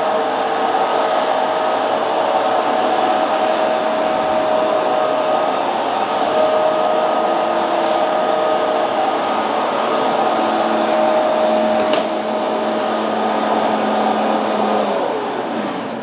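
Bissell TurboClean PowerBrush Pet carpet cleaner running, its suction motor giving a steady, loud whine as it makes passes over a rug. There is a single click about twelve seconds in, and near the end the motor winds down as it is switched off.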